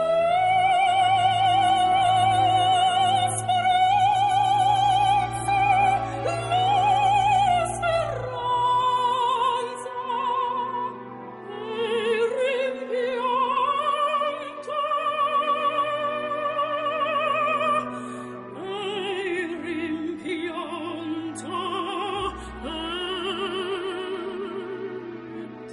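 Operatic singing: a voice holding long notes with wide vibrato, moving to a new pitch every few seconds, over sustained accompaniment.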